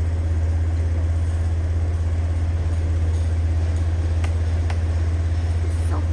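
A steady, loud low rumble, with two faint clicks about four seconds in.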